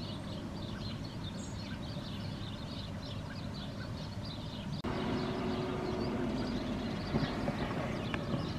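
Many small birds chirping continuously, over a low steady rumble. About halfway through the background changes abruptly, with a louder low hum under the chirping.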